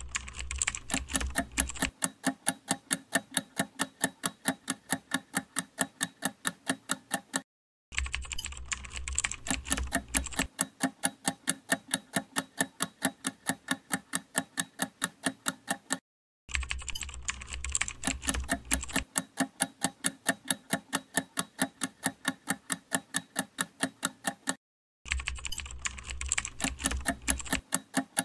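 Quiz countdown-timer sound effect: rapid, evenly spaced clock-like ticks, a few per second. The ticking breaks off in a short silence about every eight seconds and restarts with a low rumble under the first two seconds of each new run.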